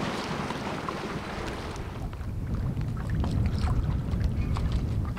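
Wind rumbling on the microphone over open water, swelling in the second half, with small splashes and drips as a small fishing boat is pushed along with a pole.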